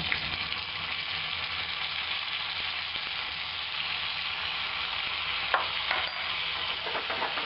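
Sliced bell peppers and capers sizzling steadily in olive oil in a stainless steel sauté pan as they are stirred with a wooden spoon. Two light knocks come about five and a half and six seconds in.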